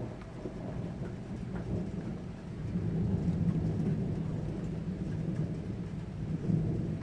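Thunder rumbling low and rolling, swelling about three seconds in and again near the end, over the hiss of rain.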